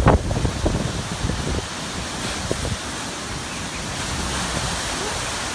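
Strong wind buffeting the microphone in gusts, settling after about two seconds into a steady rushing hiss.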